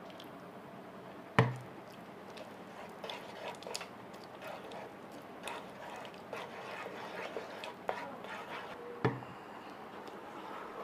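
Kitchen utensils and cookware being handled: two sharp knocks, about a second and a half in and near the end, with light clinks and taps between them.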